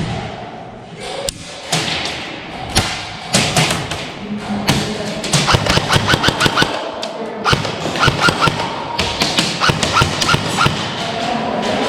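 Airsoft guns firing in quick strings of shots, several a second, thickest from about the middle on.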